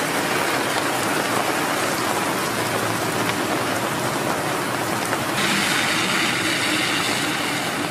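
Steady rain falling on surfaces, an even hiss that grows a little brighter about five seconds in.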